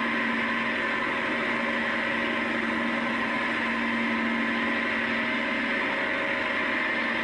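Tractor engine running steadily, a constant drone with no changes in speed.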